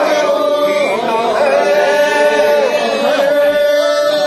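A voice singing a drawn-out Japanese festival chant in long held notes that bend at their ends.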